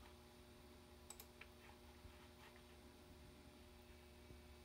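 Near silence: room tone with a faint steady hum and a few soft clicks about a second in.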